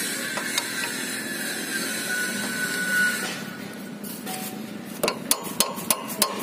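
Steel socket and T-handle wrench clinking as they are fitted together, with a quick run of about six sharp metal clicks near the end, over steady background noise.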